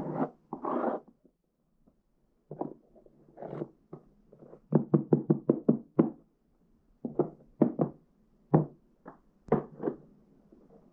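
Hand-filling bundled paper firework tubes with gunpowder: a couple of scraping swishes of the scraper through the powder near the start, then a quick run of dull knocks at about five a second, followed by scattered single knocks as the tube bundle is worked and handled.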